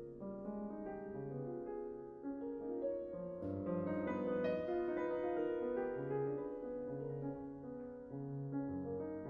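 Solo piano playing a classical piece: chords over held bass notes, growing louder about three seconds in.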